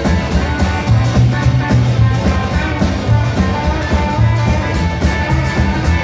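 Live band playing a rock and roll number with no singing: electric guitar, strummed acoustic guitar, upright bass and drum kit, with a steady beat and strong bass notes.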